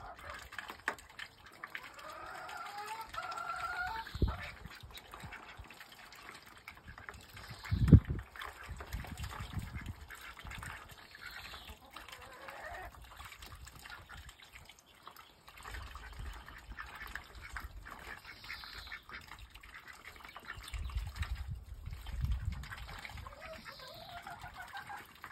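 Indian Runner ducks calling in short bursts of soft quacking chatter, a few seconds apart. A sharp thump about eight seconds in is the loudest sound, with low rumbling later on.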